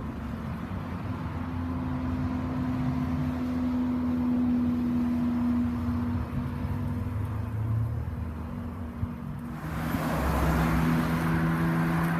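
A car engine running with a steady note. About ten seconds in it gets louder, with a lower steady note, as the car moves off or another car approaches.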